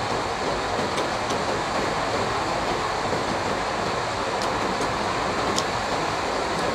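Heavy rain falling, a steady, rather loud hiss of rain, with a few faint clicks over it.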